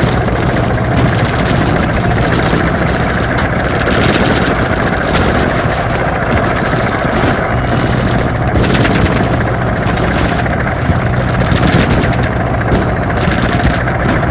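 Battle soundscape of a military exercise: rapid automatic gunfire and volleys of shots with no break, over a steady low engine drone from military vehicles.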